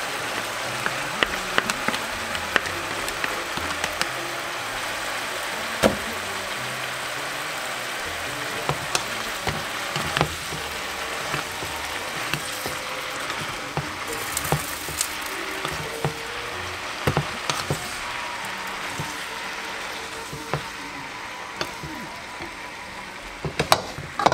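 Sliced bitter melon and beef sizzling as they stir-fry in a frying pan. A wooden spatula scrapes and knocks against the pan now and then with sharp clicks.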